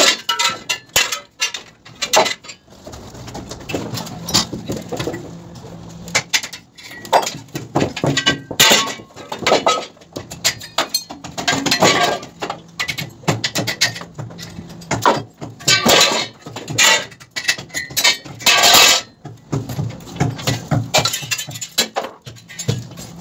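Hammer blows knocking the steel clips and locks off wall formwork panels: irregular sharp metal clanks with brief ringing, with several bunches of harder blows.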